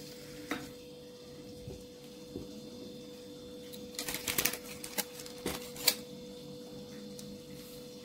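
Light clicks, taps and parchment-paper rustles from hands working pastry on a paper-lined metal baking tray: a few scattered taps, then a denser run of crackly clicks about four seconds in. A faint steady hum runs underneath.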